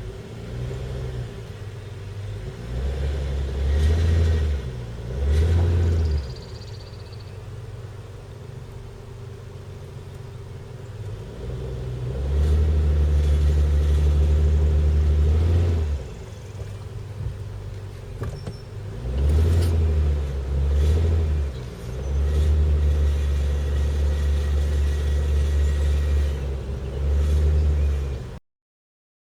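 2006 Nissan Quest's 3.5 L V6 idling and revved again and again, in about six rises lasting one to four seconds each, with a strong low rumble on each rev. The revving is meant to bring out the minivan's exhaust rattle.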